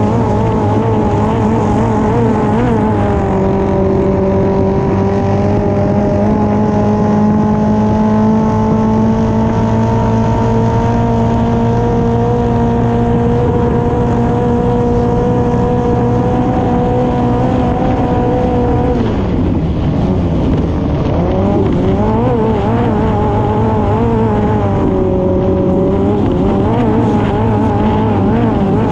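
Hydroplane's Honda F20C inline-four engine running hard at high revs. The pitch holds and creeps slowly upward, drops sharply about two-thirds of the way through, then wavers and climbs again. Water and wind hiss run underneath.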